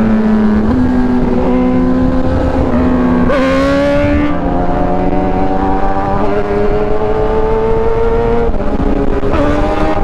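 Kawasaki ZX-10R's inline-four engine running at highway speed, its note climbing slowly as it pulls in gear, then dropping sharply with an upshift near the end and climbing again.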